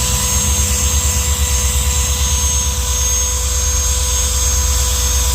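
Drill spinning a 3M stripe-off wheel against a fiberglass boat hull, grinding off old emblem lettering glue: a steady motor whine over a fast low throb.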